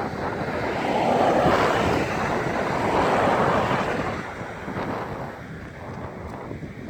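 Wind buffeting the microphone in gusts: two strong swells of rushing noise in the first few seconds, easing after about four seconds.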